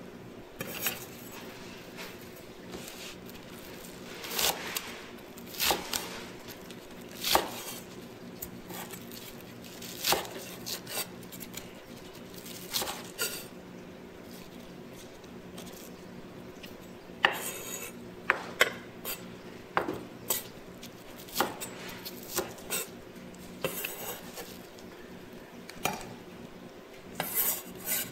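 Kitchen knife chopping green onions on a thick wooden chopping board: irregular sharp knocks of the blade striking the wood, coming in scattered runs.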